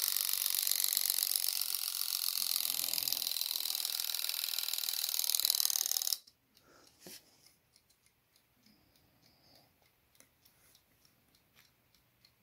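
The alarm of a cheap key-wind mechanical alarm clock (a 2013 Advance) going off with its bell removed: the hammer mechanism makes a loud, rapid metallic buzzing rattle. It cuts off suddenly about six seconds in, leaving only faint clicks. The buzz shows that the alarm trip lever has released the alarm.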